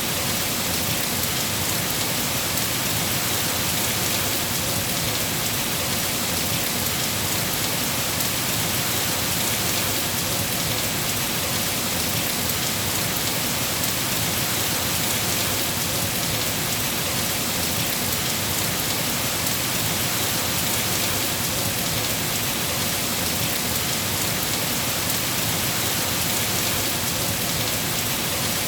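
Steady rain falling: an even, unchanging hiss with no single drops standing out and no thunder.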